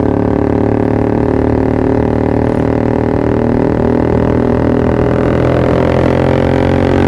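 Yamaha R15 V3's single-cylinder engine running at steady revs through a Pro Liner TR1 aftermarket exhaust, an even, unbroken drone.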